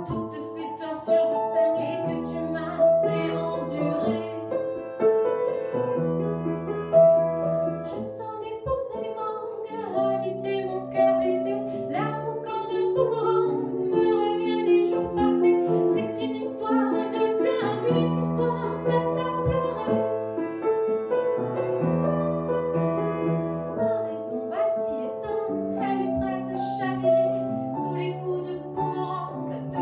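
A woman singing a song with grand piano accompaniment.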